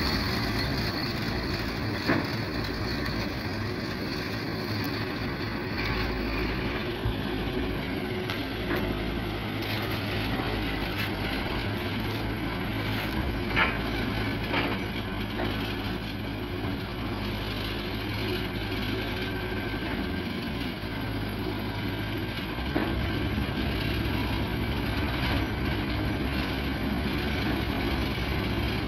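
Forklift engine running steadily as the truck drives and manoeuvres, with a few sharp metallic clicks and clanks from the truck and its load.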